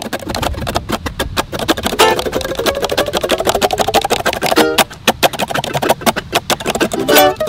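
Background music with a busy percussive beat; in the middle a tone slides steadily upward.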